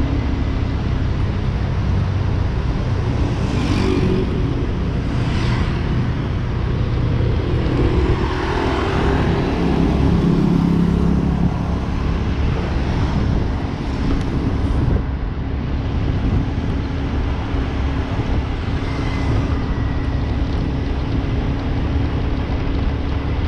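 Motorcycle engine running steadily while riding along a road, with road and wind noise. A few other vehicles pass, the loudest about nine to eleven seconds in.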